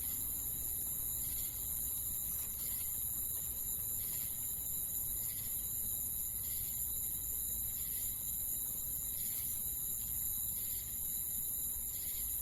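Crickets chirping steadily in a continuous high-pitched trill, with fainter chirps repeating a little more often than once a second.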